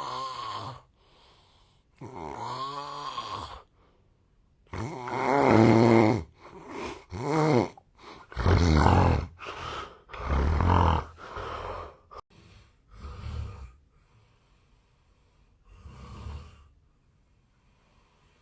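A man snoring loudly in his sleep: a string of snores one to two seconds apart, some gliding up and down in pitch, loudest around the middle, then weaker snores with longer pauses between them near the end. The sleeper himself suspects the snoring is the sign of a long-standing sleep disorder.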